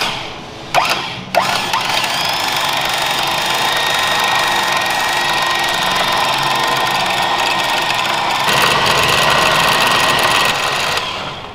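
Ramsey electric winch running steadily with a whine, spooling a new synthetic rope onto its drum. Two sharp clicks come about a second in as it starts; the sound grows louder and rougher about three quarters of the way through and stops shortly before the end.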